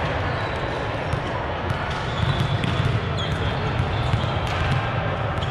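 Volleyballs bouncing on a sports-court floor over the steady din of a large gym hall.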